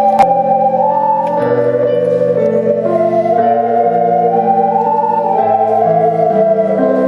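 Music: an ocarina playing a slow, gliding melody over sustained keyboard chords. There is one sharp click just after the start.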